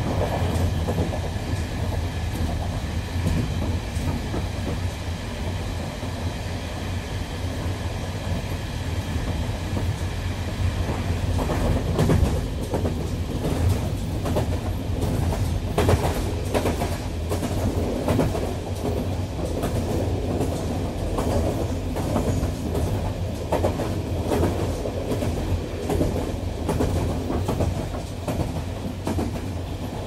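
Electric train running on the rails with a steady low hum and rumble; the wheels click over rail joints, the clicks coming more often from about halfway through.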